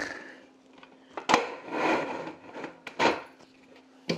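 Wooden roll-up slat top of a Marex Wood Makan 1400 roll table being handled and laid onto its metal frame. The slats rub and rattle, with a sharp wooden knock about a second in, another about three seconds in and a third at the end.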